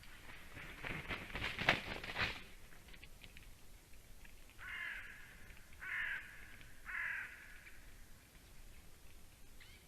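Crackling and rustling for about two seconds, then a bird gives three harsh, caw-like calls about a second apart.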